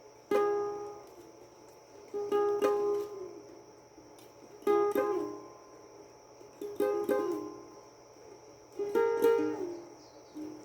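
A plucked string instrument strumming single chords about every two seconds, five in all, each ringing out and fading before the next.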